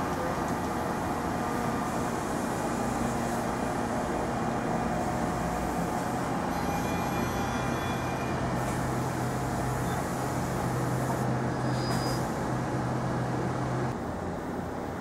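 Steady hum and rumble of a NJ Transit Arrow III electric multiple-unit train on the near track, with a low electrical drone that drops away near the end.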